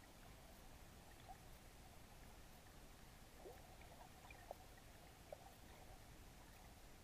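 Near silence: faint underwater ambience picked up by a submerged camera, with a few soft clicks and one short falling tone about halfway through.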